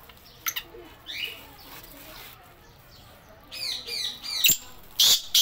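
Black francolin calling: a run of short, rapidly repeated harsh notes about three and a half seconds in, then loud harsh notes near the end, with a few faint chirps before them.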